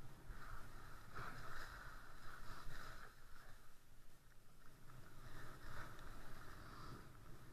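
Skis sliding and carving over groomed snow: a rough hiss that swells twice as the turns bite, over a low wind rumble on the microphone.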